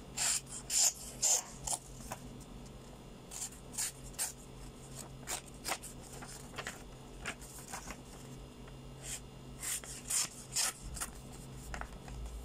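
Miniature keychain cleaver knife slicing through a sheet of paper in short, quick cuts, each a brief crisp rasp, coming in several runs with pauses between. The cuts test how sharp the tiny blade is.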